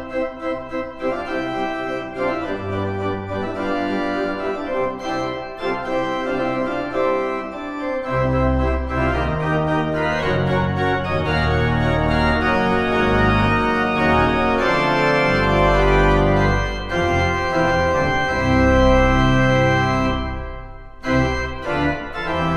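Church organ playing full sustained chords over a deep bass line, changing chords every second or two, with a short break near the end before it plays on.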